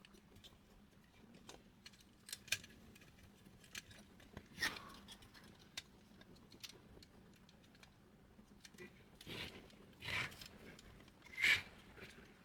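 Scattered light clicks, then a few short scrapes and rustles, from printer parts being handled during disassembly. The loudest scrape comes about a second before the end.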